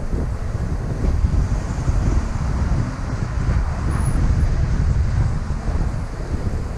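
Taxi driving slowly along a city street: a steady low rumble of road and engine noise, with wind on the microphone.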